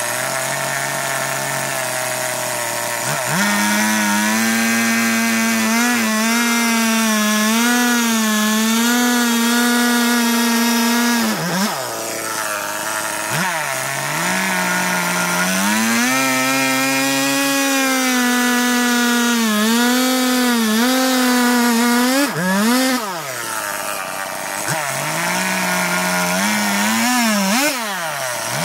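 Two-stroke chainsaw cutting into a log. It runs at a lower speed, then is throttled up about three seconds in, and its pitch wavers under load as the chain bites into the wood. Several times it drops off briefly and revs back up.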